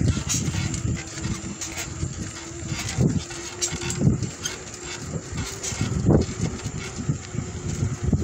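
Wind buffeting the microphone and tyres rolling on asphalt during a ride down a paved street: a low rumble with irregular gusting surges and a faint steady hum.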